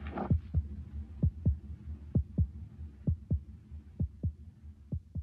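Heartbeat sound effect: pairs of short, low thumps dropping in pitch, about one pair a second over a steady low hum, slowly fading. A brief whoosh sits at the very start.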